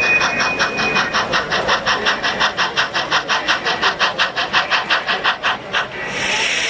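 Sound-equipped model steam locomotive chuffing at about six beats a second, then, about six seconds in, the chuff stops and gives way to a steady hiss of released steam. A faint steady high tone sounds during the first second.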